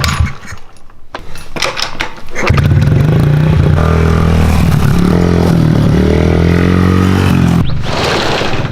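A motor engine running loudly and steadily, starting about two and a half seconds in after a quieter stretch of scraping and knocks, with a short hissing rush near the end.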